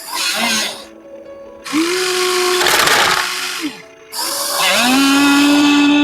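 Small electric motors of RC construction vehicles whining. One spins up a little under two seconds in, runs steadily with a rushing noise over it, and winds down about two seconds later. Another spins up again about a second after that and keeps running.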